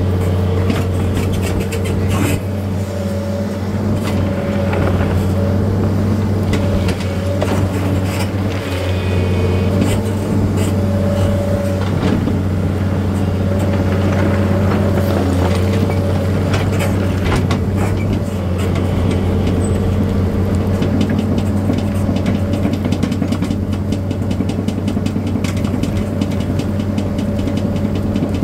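A machine's engine running steadily at an unchanging speed, with scattered short clicks and rattles over it.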